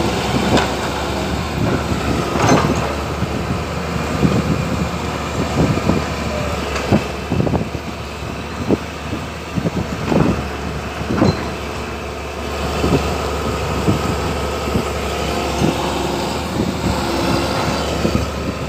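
Hydraulic excavators' diesel engines running steadily, with irregular sharp clanks and knocks scattered throughout.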